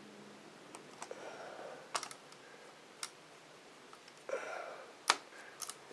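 Small screwdriver and screws being worked into the plastic case of a Dell Inspiron 1420 laptop at the top edge of its keyboard: a few sharp clicks roughly a second apart, the loudest about five seconds in, with short bits of scraping between them.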